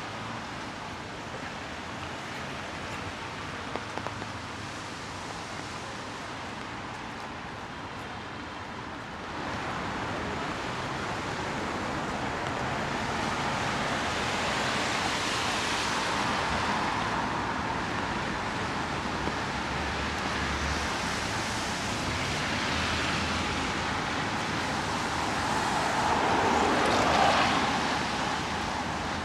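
Steady hiss of rain and a wet city street. The noise grows louder about nine seconds in and swells briefly near the end before easing.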